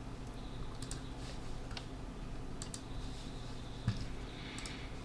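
Scattered single clicks of a computer keyboard over a low steady hum, with a soft knock about four seconds in.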